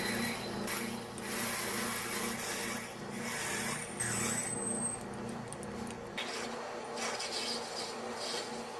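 Metal lathe running with a drill bit fed from the tailstock into the spinning metal workpiece: a steady motor hum under the continuous scraping hiss of the cut, with a brief high whine about four seconds in.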